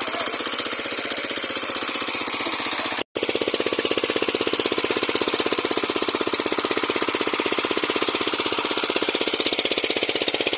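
Small engine-driven water pump running steadily with a rapid, even chugging beat while it pumps water out of the pond. The sound cuts out for an instant about three seconds in.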